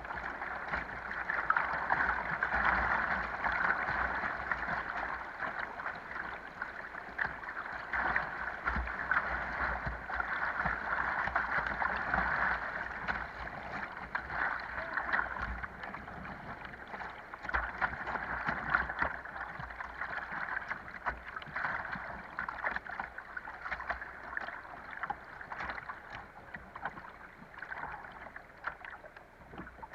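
Whitewater rapids rushing and churning around a kayak's bow, with frequent short splashes against the boat. The rush gradually eases over the last several seconds as the kayak reaches calmer water.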